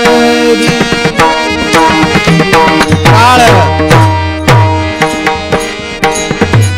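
Kirtan accompaniment between chanted lines: a hand drum plays a fast pattern with hand cymbals clashing, over a held harmonium chord. From about three seconds in, the drum's deep bass strokes slide down in pitch, about twice a second.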